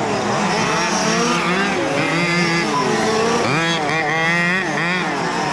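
Several large-scale radio-controlled F1 race cars' engines revving up and dropping off as they lap the track, their pitches rising and falling and overlapping.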